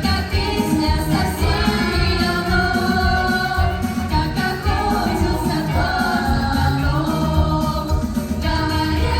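Song with a singing voice over a band accompaniment with a steady low beat.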